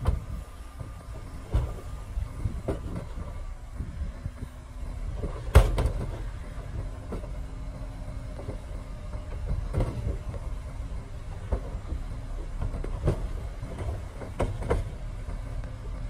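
Dump truck's diesel engine running steadily as the hydraulic hoist raises the loaded bed to tip out soil, with scattered knocks and thuds as the load shifts; the loudest knock comes about five and a half seconds in.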